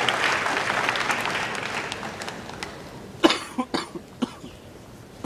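Tennis crowd applause dying away after a point, followed by a few sharp coughs from spectators between about three and four and a half seconds in.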